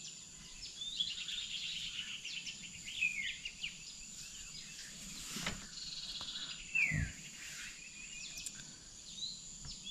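Dawn birdsong: scattered chirps, quick trills and a few downward-gliding whistles over a steady high-pitched insect drone. Two dull thumps come past the middle, the second the loudest sound.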